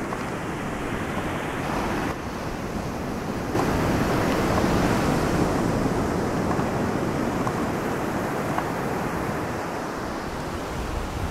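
Ocean surf washing steadily, with wind rumbling on the microphone; the noise swells and grows louder about three and a half seconds in.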